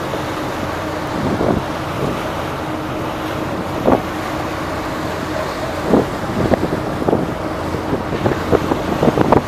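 Steady drone of a passenger river motor ship under way, with wind rushing over the microphone and several short gusts buffeting it.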